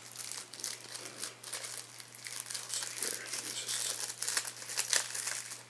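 Crinkling and rustling of small packaging being handled and unwrapped, with irregular crackles throughout.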